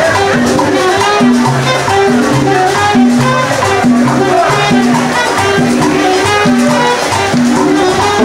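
Latin dance music playing loudly, with a steady, repeating bass line under busy melody.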